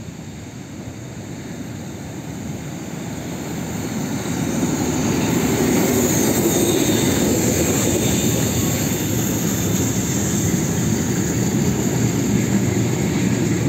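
A ČSD class 555.0 steam locomotive, 555.0153, runs past hauling vintage passenger carriages. The sound grows louder as the locomotive comes close in the first few seconds, then holds steady as the carriages roll by on the rails.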